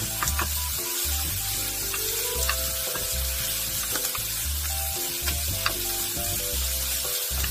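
Enoki mushrooms, onion and scallion sizzling steadily in a hot oiled nonstick pan as they are stir-fried with wooden spatulas, with a few light taps of the spatulas. Soft background music with a regular bass pulse plays underneath.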